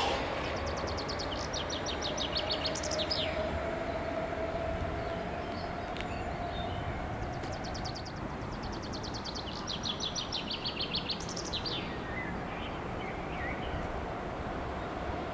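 Hamburg U-Bahn train running on the elevated line: a steady hum with a faint tone slowly rising in pitch. Over it a songbird sings a rapid trill twice, about half a second in and again about seven seconds in.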